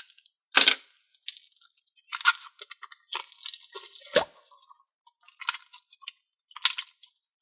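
Crinkling and clicking of a plastic putty container and its packaging being handled and opened, in short irregular bursts.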